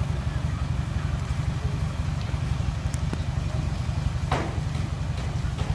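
Heavy diesel engine running steadily with a deep, fast-pulsing rumble, with a brief burst of noise about four seconds in.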